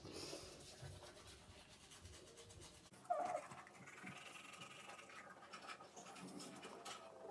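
Faint scrubbing of a manual toothbrush on teeth, with breathing, and a short voiced sound about three seconds in.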